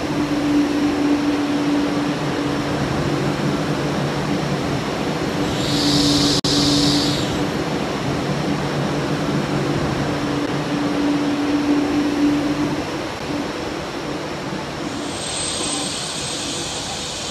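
CRH high-speed electric train moving slowly alongside the platform: a steady rolling rumble with a low hum that comes and goes. There is a short hiss about six seconds in, and another longer hiss starts near the end.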